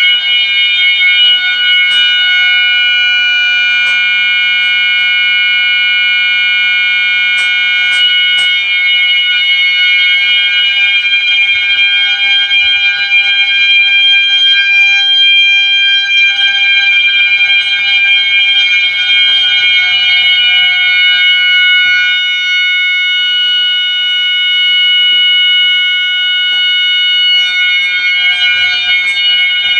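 System Sensor mass notification horn strobes sounding: a loud, steady electronic horn tone made of several high pitches held together without a break.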